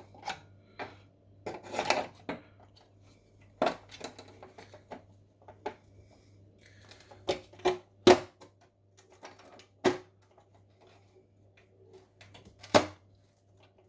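Steel oven door hinge clicking and knocking against the door's metal frame as it is worked into its slot: a handful of sharp metallic knocks and clinks, the loudest about eight seconds in and again near the end.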